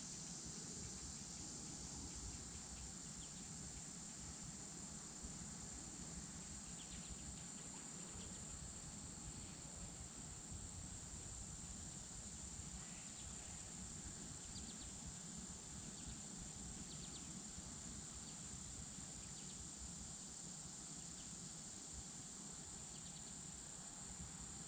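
Insects trilling in a continuous high-pitched chorus that holds steady throughout.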